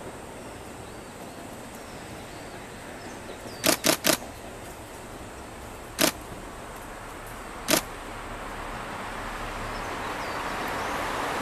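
Kiha diesel railcar on the Tadami Line running along the river far below, a faint steady rumble under open-air noise that grows louder toward the end. Sharp clicks stand out above it: three in quick succession a little over a third of the way in, then single ones about six and eight seconds in.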